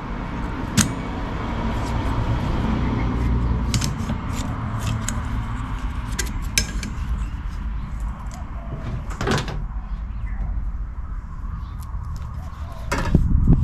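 Scattered sharp plastic clicks and snaps from a wiper blade being worked off its wiper arm, over a steady low rumble.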